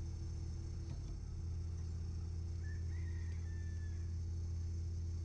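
Steady low mechanical hum of running farm machinery, with a short, high, wavering call, like a bird's, about three seconds in.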